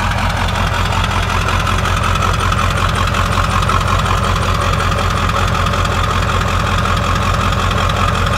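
1995 Ford F-250's 7.3-litre Powerstroke turbo-diesel V8 idling steadily, heard at the tailpipe, with an even low pulsing. The engine is still cold, run up from a cold start at about 30 °F with the block heater not plugged in.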